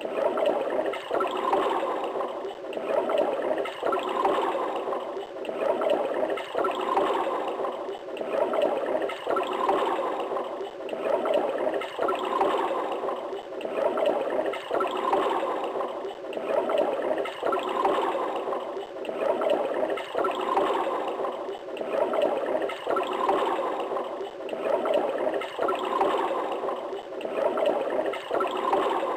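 Toilet flush: water rushing and gurgling, swelling and easing in an even cycle about every second and a half.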